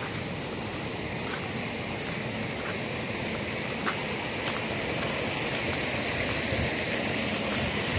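Steady rushing water noise with a few faint scattered ticks, growing slightly louder.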